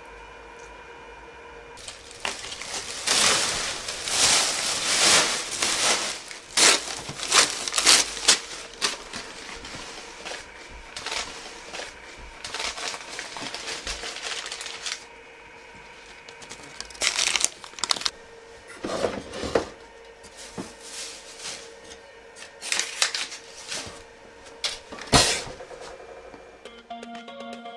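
Irregular rustling and crinkling as things are handled while a room is cleared out, in many short bursts that come thickest in the first few seconds, over a faint steady hum.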